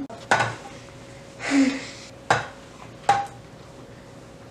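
Metal food tins set down and shuffled on a stone countertop: three sharp knocks, the last with a brief metallic ring, and a longer, noisier scrape-like sound between the first two.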